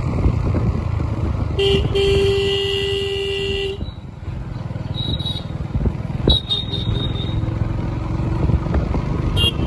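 Motorbike riding along a road, its engine running under wind noise on the microphone. About one and a half seconds in a horn sounds, a short toot and then a steady blast of about two seconds.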